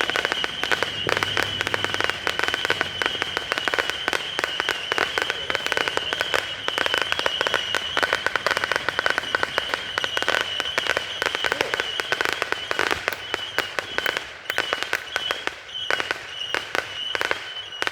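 A 500-shot bottle-rocket-style firework barrage firing in rapid succession: many quick pops a second over a steady high whistle, thinning out and breaking up near the end.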